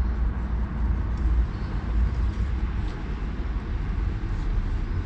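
Steady low outdoor background rumble with an even haze of noise and a few faint ticks.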